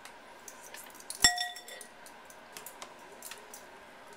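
A metal spoon clinks sharply against a glass mixing bowl once, about a second in, leaving a short bright ring, while mayonnaise is scooped in; a few faint taps and scrapes of the spoon follow.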